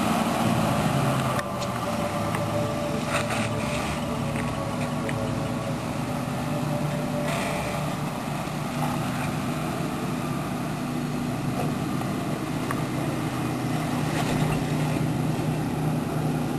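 Toyota 4Runner's engine running steadily at low revs as the truck crawls slowly over a rock ledge.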